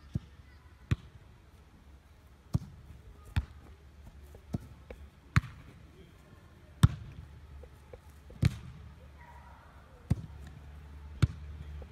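A football being kicked again and again: about ten sharp thuds, irregularly spaced roughly a second apart, over a low steady rumble.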